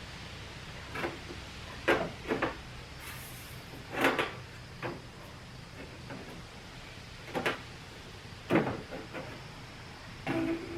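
Irregular knocks and light clanks of a piece of sheet metal being handled and set in place, the loudest about two, four and eight and a half seconds in.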